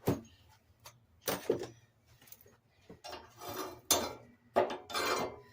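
Metal tools and parts clinking and clattering, several short separate clanks with pauses between them.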